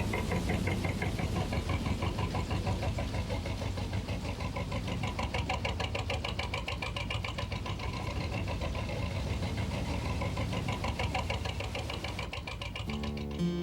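An engine running steadily at idle, with a rapid, even beat. Acoustic guitar music comes in right at the end.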